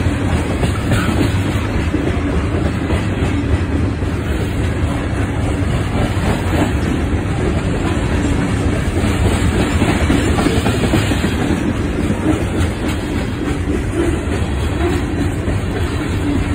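Freight train of CSX coke hopper cars rolling past, a steady rumble and clatter of steel wheels on the rails.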